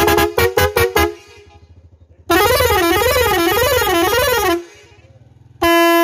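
Tractor's electric musical air horns sounding. First a quick tune of short clipped notes that stops about a second in, then a wailing tone that swings up and down for about two seconds, then a steady single-note blast starting near the end.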